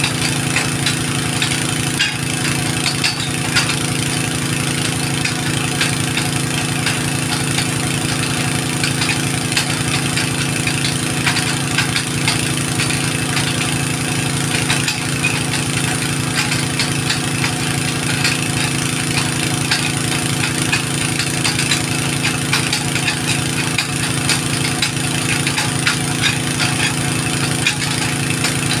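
An engine running steadily at a constant speed: an even hum with a dense patter of small ticks over it.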